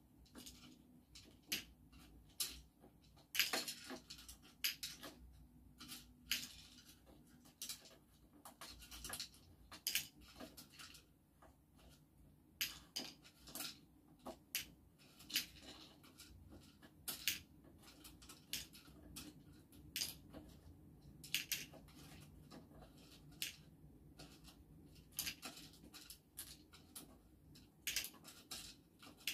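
Wooden chopsticks clicking and tapping against small dishes as beans are picked up and dropped: many light, irregular ticks with short gaps between them.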